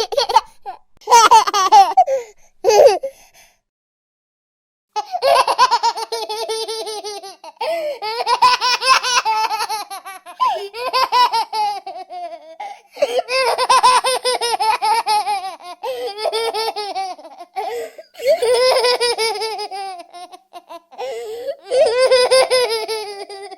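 A baby laughing: a few short bursts, a pause of about two seconds, then long fits of rapid, pulsing laughs with brief breaks between them.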